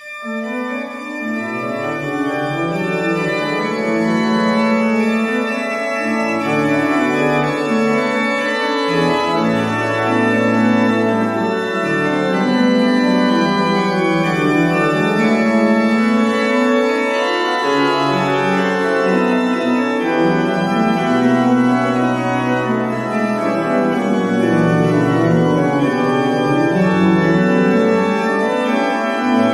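Organ playing an Easter hymn in sustained chords with a moving melody line.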